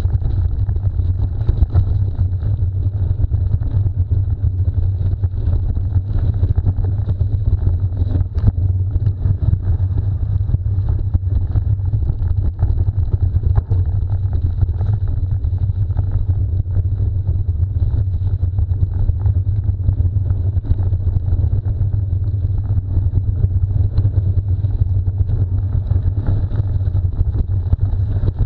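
Steady low wind rumble and buffeting on a moving microphone, with many small rattles and knocks scattered through it.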